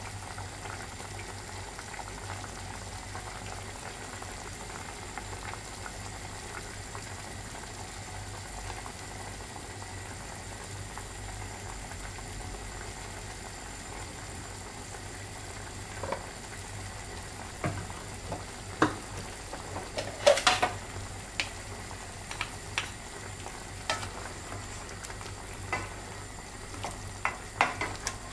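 Pork ribs simmering in sauce in a stainless steel pot, a steady bubbling. In the second half, sharp clicks and knocks come from the spoon and the spatula against the pot as sauce is added and the ribs are stirred.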